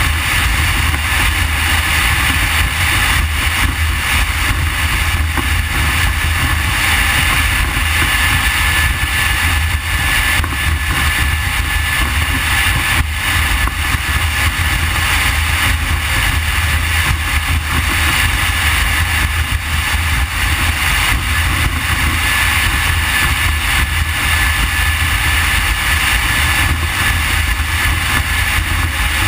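Triple Mercury Verado 350 outboard motors running steadily at speed on a powerboat, with a thin steady whine over a continuous rush of wind and water.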